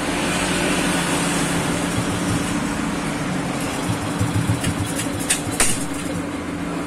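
Yamaha scooter's single-cylinder engine idling steadily, with a couple of light clicks a little past halfway.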